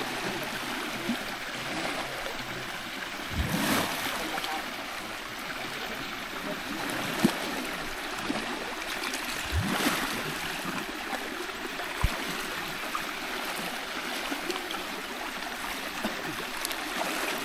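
Steady rush of flowing water, like a stream, with a few short knocks and splashes and faint voices.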